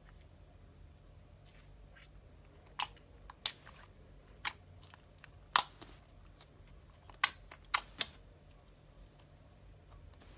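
Clear borax-activated slime being squeezed and stretched by hand, giving off irregular sharp clicks and pops as trapped air bursts, about ten of them, the loudest a little past halfway.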